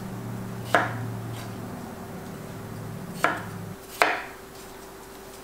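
Chef's knife cutting peeled raw potatoes into chunks on a wooden cutting board: three sharp knocks of the blade striking the board, one about a second in and two close together near the end, over a faint steady hum.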